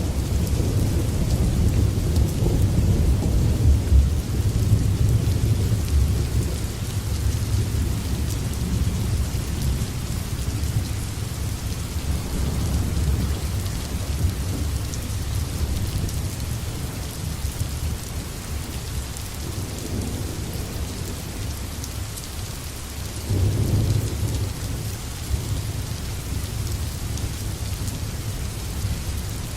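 Steady rain with rolling thunder. A heavy low rumble at the start fades over several seconds, and another rumble swells up about 23 seconds in, under the continuous hiss of the rain.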